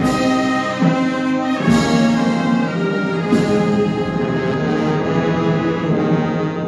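Brass marching band playing a slow funeral march: sustained brass chords, with a heavy percussion stroke about every one and three-quarter seconds through the first half.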